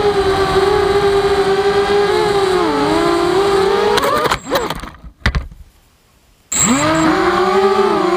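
Walkera Rodeo racing quadcopter's motors and propellers whining steadily, the pitch dipping and rising with the throttle. About four seconds in, the quad clips the ground with a few knocks and the motors cut out for about a second, then spin back up with a rising whine and run on.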